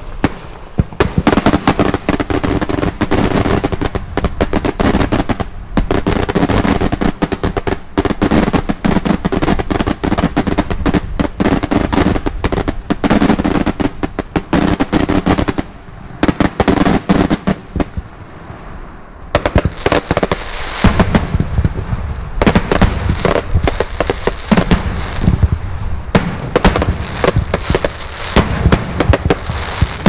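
Daylight fireworks salutes going off in a rapid, continuous barrage of loud overlapping bangs, many a second. The barrage thins out for a few seconds around the middle, then builds up dense again.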